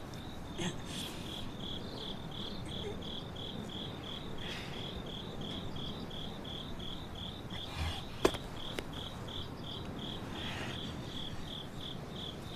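Crickets chirping in a steady rhythm, about three chirps a second. There is soft rustling now and then, and one sharp click about eight seconds in.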